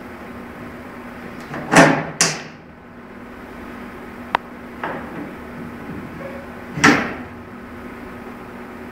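ABB switchgear mechanism being operated with a metal operating lever: two loud clunks close together about two seconds in and another near seven seconds, with a few lighter clicks between. A steady low hum runs underneath.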